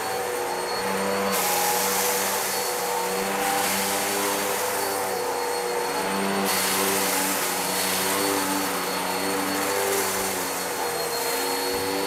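Hoover WindTunnel Whole House Rewind upright vacuum running steadily, its motor whining as it is pushed back and forth over carpet, picking up kitty litter. A rushing hiss swells for a couple of seconds about a second in, and again for several seconds after the middle.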